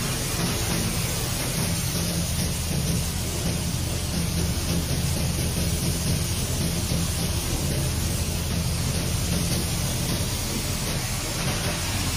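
Hammer mill crushing aluminum cans, running steadily: a low hum under a constant rushing noise of shredded can pieces pouring off the discharge conveyor onto a pile.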